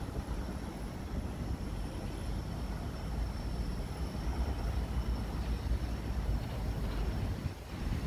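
Low, uneven rumble of wind buffeting the microphone, with a brief lull near the end.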